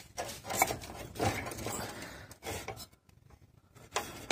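Metal clinks, knocks and scraping as a motorcycle's rear wheel is worked by hand off its drum-brake hub. Several clinks come close together in the first couple of seconds, then a short lull, then a couple more knocks near the end.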